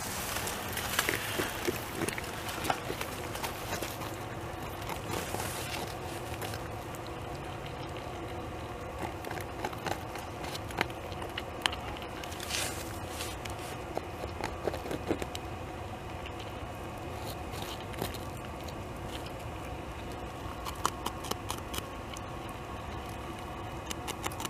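North American beaver gnawing bark off a large tree trunk and chewing it: irregular scraping and crunching clicks of its incisors on the wood as it strips the bark to eat the soft cambium layer beneath.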